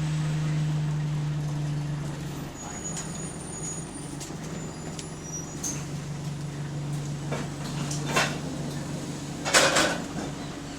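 Bus engine running, heard from inside the cabin, its steady note dropping away about two seconds in. Near the end come two short hisses of compressed air, the second the louder.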